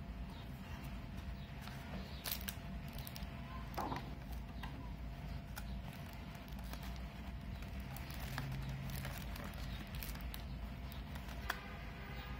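Hands handling an earbud box and its clear plastic insert tray: scattered light clicks and taps over a steady low hum.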